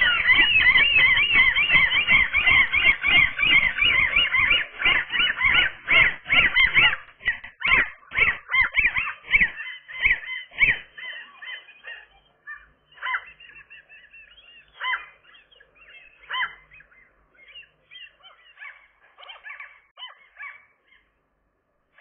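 Gulls calling: a rapid, loud run of high yelping calls, about four a second, which thins out after about seven seconds into scattered, fainter calls.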